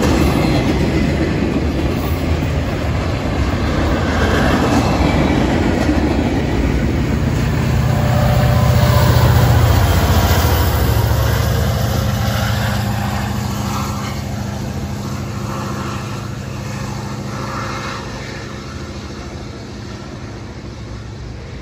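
Freight train rolling past, flatcar wheels clattering on the rails, then a BNSF diesel locomotive at the rear of the train goes by about halfway through, its engine hum loudest as it passes. The sound then fades steadily as the train moves away.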